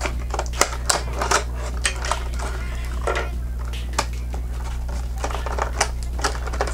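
Irregular clicks, taps and crinkles of lip gloss tubes and their packaging being handled, over a steady low hum.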